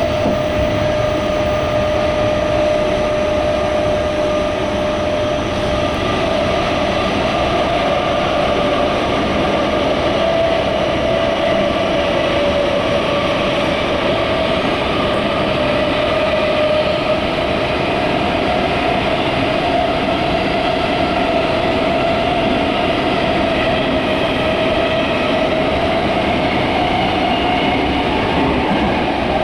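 Running noise inside a Toyo Rapid Railway 2000 series electric train at speed: a steady rumble of wheels on rail with a whine from the running gear that wavers slightly in pitch partway through.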